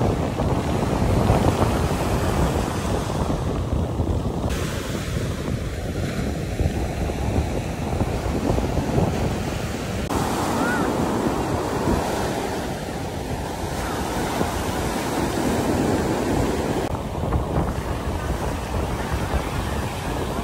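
Small ocean waves breaking and washing up a sand beach, with wind buffeting the microphone in a steady low rumble.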